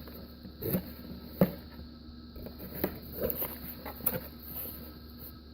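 Cardboard box and packaging being handled and opened: scattered rustles and a few short knocks, the sharpest about a second and a half in.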